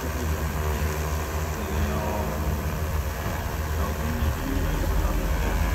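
X1400 industrial multirotor drone hovering, its rotors giving a steady hum that grows slightly louder near the end.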